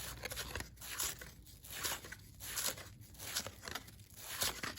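Baseball trading cards being slid off a stack one at a time by hand, a dry papery swish every half second or so.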